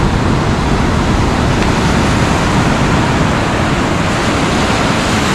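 Ocean surf breaking on a sandy beach: a steady rushing wash of waves.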